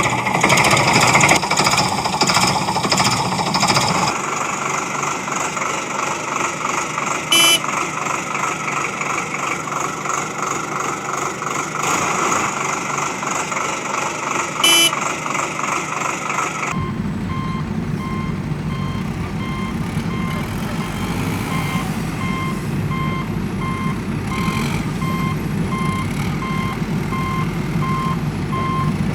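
A machine motor runs with a fast rhythmic buzz, broken twice by a short high beep. About seventeen seconds in, the sound switches abruptly to a vehicle's reversing alarm beeping at an even pace over a low engine rumble.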